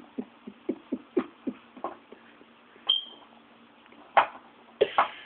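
A baby making a run of short vocal sounds, each with a quick drop in pitch, with a few sharper knocks about four and five seconds in.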